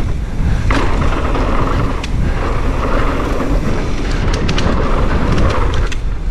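Wind buffeting the microphone and knobby tyres rumbling over a dirt trail as a mountain bike descends at speed, with scattered ticks and rattles from the bike.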